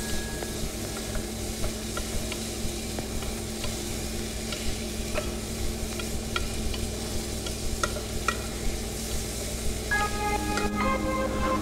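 Diced potatoes, carrots and onion sizzling as they fry in a stone-coated pot, stirred with a wooden spatula that scrapes and taps against the pan now and then. Background music comes in near the end.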